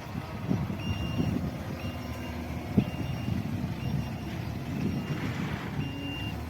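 Loader's reversing alarm beeping about once a second, six short high beeps over its diesel engine running, with a single sharp knock about three seconds in.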